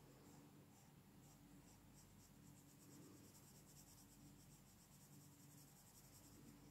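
Colored pencil shading on coloring-book paper: faint, quick back-and-forth scratching strokes, a few a second.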